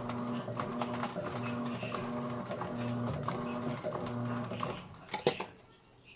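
Electrolux Essential Care 11 kg top-load washing machine agitating a load, its motor humming in rhythmic back-and-forth strokes about one and a half times a second with light ticking. The agitation stops almost five seconds in, followed by a couple of sharp clicks.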